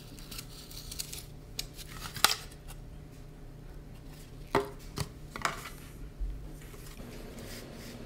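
Box cutter blade scoring through black poster board, then the cut pieces of board being handled and laid on the table, with a few sharp clacks.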